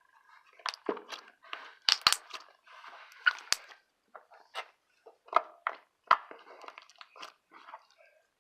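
Fluffy slime being squished and worked by hand close to the microphone for ASMR, giving an irregular string of crackles, clicks and small pops.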